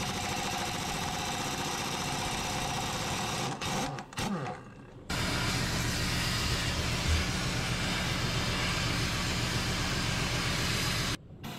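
Shop power tools on a seized 1-inch suspension beam bolt: a tool runs steadily for about three and a half seconds, then, after a short break with a few brief bursts, an abrasive cut-off wheel grinds steadily through the bolt and stops suddenly shortly before the end.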